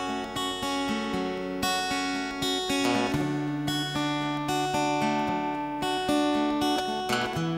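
Instrumental music led by an acoustic guitar, picking and strumming through a changing run of chords, with no singing.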